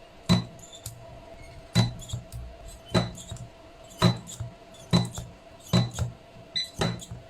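Battery spot welder firing pulse after pulse, about one sharp crack a second, as it tacks nickel-steel strip laid over copper sheet onto 21700 lithium-ion cells. A faint steady hum sits underneath.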